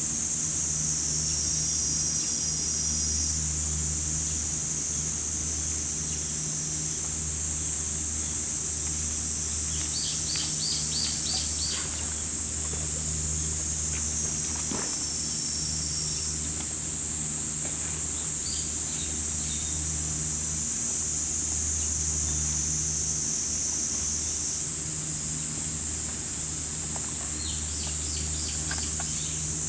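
A steady, high-pitched chorus of summer insects (cicadas) shrilling without pause, with a bird's quick runs of chirps about ten seconds in and again near the end, over a low steady hum.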